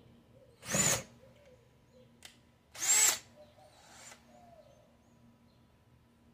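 Cordless drill run in two short bursts against a car's front bumper to start a pilot hole, each a brief whine rising in pitch as the motor spins up.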